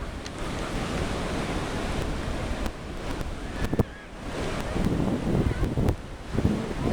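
Wind buffeting the microphone over a steady rushing hiss, with one sharp knock a little before four seconds in; no aircraft engine is heard.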